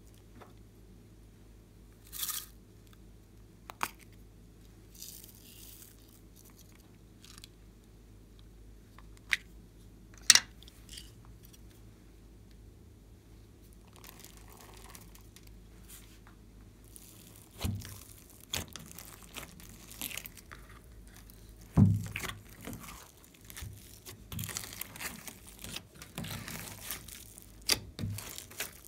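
Slime ASMR handling. A few light clicks and taps, then a soft patter as small topping pieces are sprinkled onto pink slime in a glass tray. About halfway in, hands start pressing and kneading the slime, with dense crackling and squishing and several heavier thumps.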